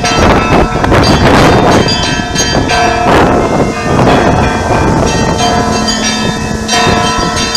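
Church bells ringing a peal: several bells struck over and over in quick, overlapping strokes, their tones ringing on between strikes.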